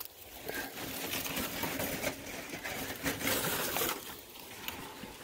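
Leafy brush and dry weeds rustling and crackling in irregular bursts as they are pushed aside.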